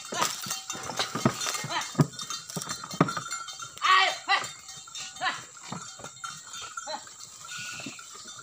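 Irregular clanking of the bell on a draught cow pulling a heavily loaded wooden cart, mixed with knocks from the cart as it jolts over a rutted mud track. A brief high-pitched sound about four seconds in.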